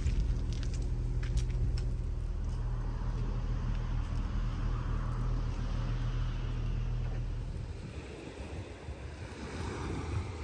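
Low, steady engine hum that fades out about three-quarters of the way through, leaving a softer rushing noise.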